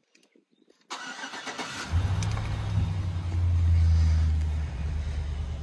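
2005 Chevrolet Silverado 1500 pickup engine, heard from inside the cab, cranking for about a second and catching about two seconds in. It runs louder for a moment after catching, then settles to a steady idle.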